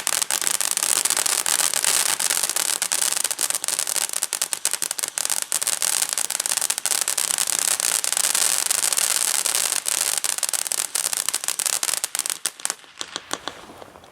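Weco Palermo ground fountain burning: a steady loud hiss thick with crackling, which thins to scattered crackles and fades out in the last second or two as the fountain burns out.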